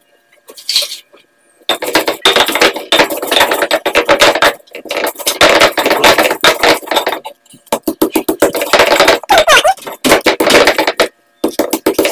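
Stone pestle grinding and crushing shallots, garlic and coriander seeds on a volcanic stone mortar (cobek), with rapid scraping and knocking strokes. They start about two seconds in and come in several runs broken by short pauses.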